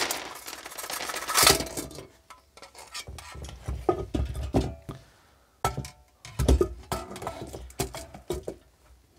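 Irregular metal clinks and knocks as an aluminium cavity filter housing is turned over and its perforated metal lid is lifted off and set down, the parts knocking on a wooden bench. The loudest knocks come right at the start and about a second and a half in.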